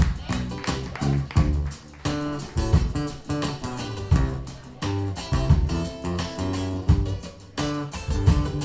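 Live band playing a guitar-led instrumental with bass, over a steady beat. It is a short theme tune played to bring a singer on.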